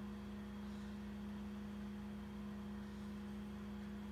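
Steady electrical hum: one low tone with fainter overtones above it, unchanging throughout.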